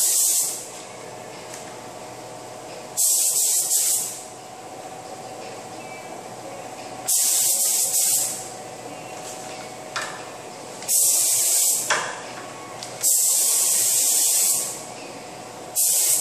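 Air-powered gravity-feed paint spray gun spraying in short passes: a hiss about a second long each time the trigger is pulled, repeating every few seconds, with a faint steady hum between passes.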